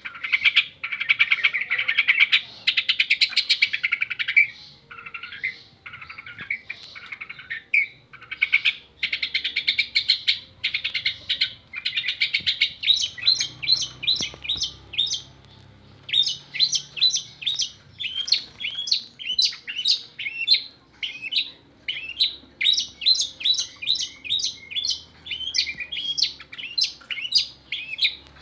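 Long-tailed shrike (cendet) singing: a fast, dense chattering warble for about the first twelve seconds, then a long run of short, sharp repeated notes, two or three a second.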